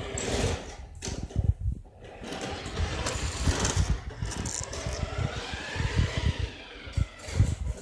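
Radio-controlled toy Porsche Panamera whirring as it drives across a wooden floor. Its pitch rises and falls around the middle.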